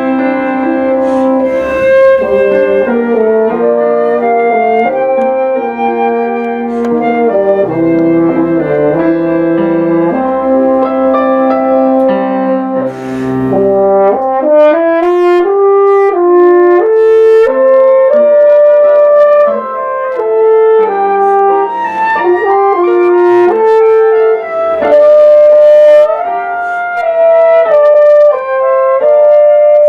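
A flute, French horn and piano trio playing a piece together: held horn and flute notes moving in melody over piano accompaniment.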